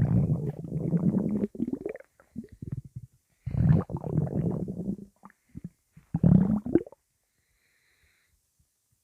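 Human stomach rumbling and gurgling in three long spells.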